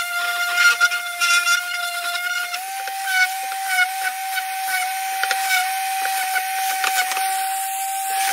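Makita cordless random orbital sander running, sanding the edges of small softwood blocks: a steady high whine that shifts slightly in pitch, over the hiss and scratch of the pad on the wood.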